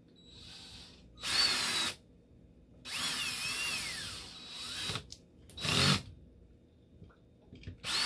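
Cordless drill run in four short bursts with its bit on the end cap of a small electric motor. In the longest burst the whine sags in pitch and then climbs back up as the trigger is eased and squeezed again.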